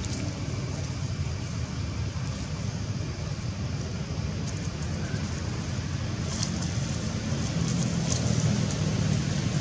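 Steady low rumble of outdoor background noise, with a few faint short ticks or rustles in the second half.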